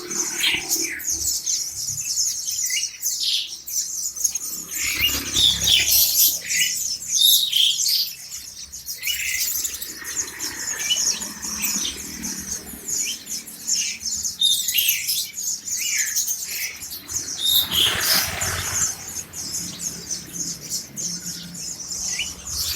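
Many white-eyes (pleci) chirping together, with dense overlapping short high calls and a brief rustle about three-quarters of the way through.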